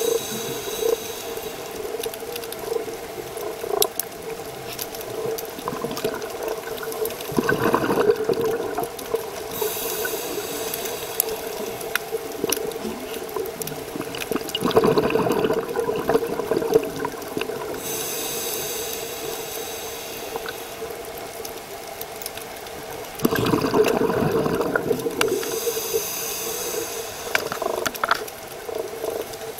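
Scuba diver breathing through a regulator underwater: a hissing inhale followed by a burst of exhaled bubbles, three breaths in all, over a steady low hum.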